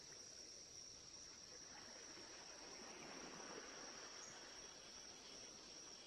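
Faint night-time cricket chorus: a steady high-pitched trill over a soft hiss.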